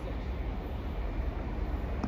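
Steady low rumble of wind buffeting the microphone, over the faint, even sound of a train approaching in the distance.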